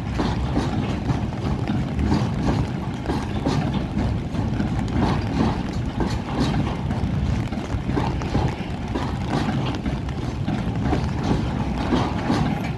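Freight train of loaded flatcars rolling past: a steady low rumble of wagons with a rhythmic clatter of wheels over the rail joints.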